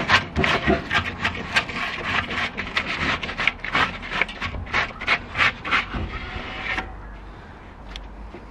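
Rubber-gloved hand scrubbing the grimy inside of a kettle barbecue's bowl, quick back-and-forth rubbing strokes about two or three a second, stopping about seven seconds in.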